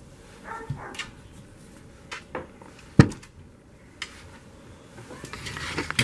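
Handling noise: light knocks and rubbing from small metal revolver parts being wiped and moved about on a towel-covered table, with one sharp knock about three seconds in and rustling near the end.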